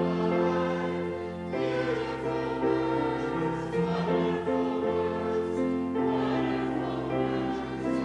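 Church congregation singing a hymn together over a steady instrumental accompaniment, the chords changing every second or so.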